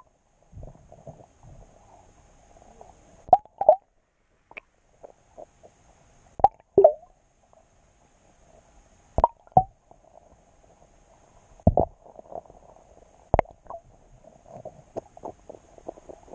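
Almonds plopping into the water from above, heard underwater through a submerged camera housing: about eight sharp plops, mostly in pairs, with faint low rumbling in between.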